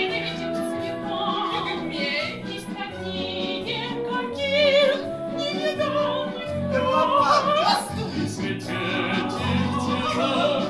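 Music: a singing voice with wavering held notes and pitch glides over an accompaniment with a steady pulsing beat.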